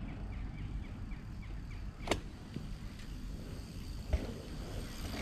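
Wind rumbling on a helmet camera's microphone, with faint high chirps repeating about three times a second early on, a sharp click about two seconds in and a low thump near the end.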